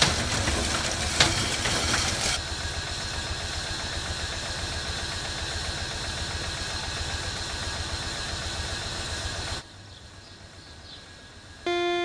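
Steady low mechanical rumble with hiss, with a few sharp clicks in the first two seconds; it cuts off abruptly near the end. Just before the end a sustained plucked-string note begins.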